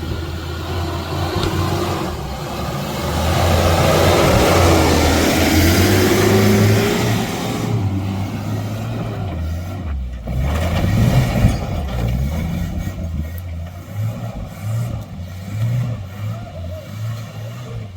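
Off-road 4x4 truck engine running and revving in low gear while crawling a trail. A loud rushing noise sits over it from about three to seven seconds in, and the engine note rises in pitch there.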